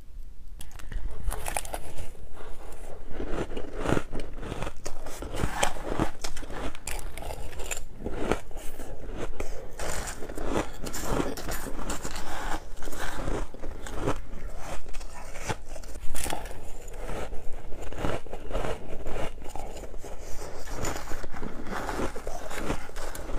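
Metal spoon digging and scraping through a bowl of crushed white ice, with dense, quick crunching and crackling close to the microphone.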